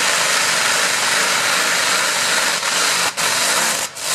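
Radial engine of a pulling tractor running loud at full power under load. The steady noise dips briefly about three seconds in and again just before the end.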